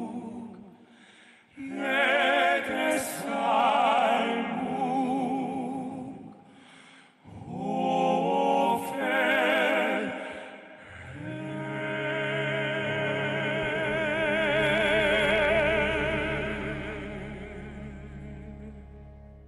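Male classical-crossover vocal quartet singing operatic, vibrato-laden phrases with short breaths between them. About eleven seconds in, the four voices join on a long held final chord over a low bass that slowly fades out.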